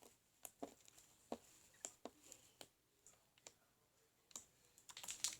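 Scattered small sharp clicks and taps, a few a second, with a quick run of them near the end.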